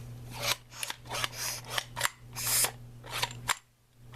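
Portable hand-held bicycle mini pump being worked by hand, giving a short hiss of air with each stroke, about a dozen uneven strokes, a few of them longer.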